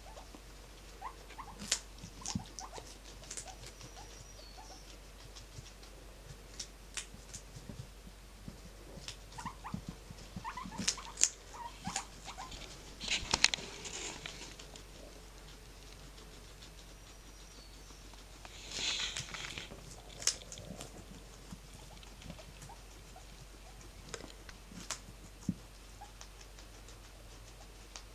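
Guinea pig and rabbit eating and moving about in loose hay: scattered small crunches, clicks and rustles, with a longer rustle about 19 seconds in.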